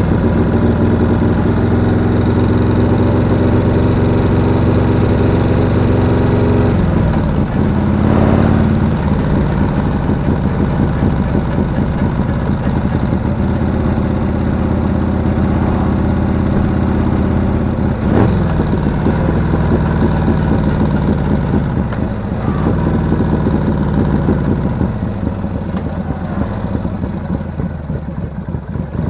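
Cruiser motorcycle engine running under way on the rider's own bike. The engine note steps down in pitch several times, about a quarter, three fifths and three quarters of the way through, as the rider eases off, and falls away and quietens near the end as the bike slows.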